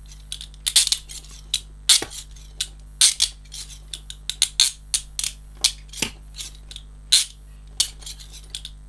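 Peerless Model 503 leg iron being ratcheted shut: an irregular run of sharp metallic clicks as the bow's teeth snap past the spring-loaded pawl in the lock box. The crisp snap comes from a very strong spring force and a stiff closing.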